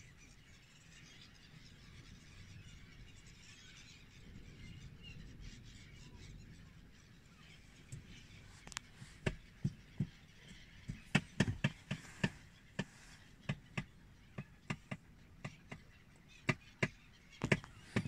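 A large flock of gulls calling. The calls are faint at first, then from about eight seconds in come many short, sharp calls in quick, irregular succession.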